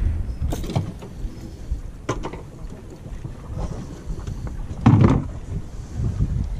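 Wind buffeting the microphone as a low rumble, with a few knocks and one louder thump about five seconds in.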